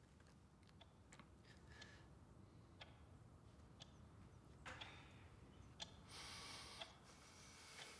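Near silence in a quiet room, with faint scattered ticks and clicks and a short soft rustle about six seconds in.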